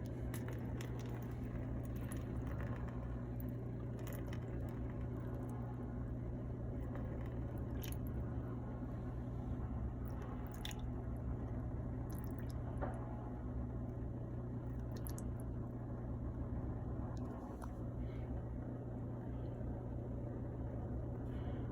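Dishwasher pump motor humming steadily while water sloshes and squishes, with scattered small clicks.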